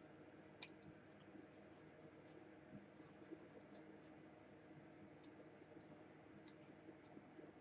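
Near silence with faint, scattered light ticks and scratches of paper being handled and placed on a journal page.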